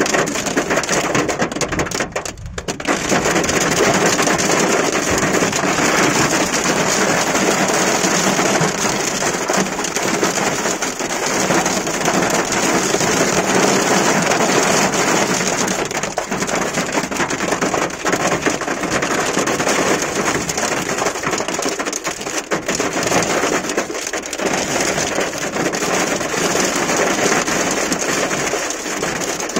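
Heavy rain mixed with hail falling on a car's roof and windscreen, heard from inside the car as a dense, steady hiss and patter, with a brief dip about two seconds in.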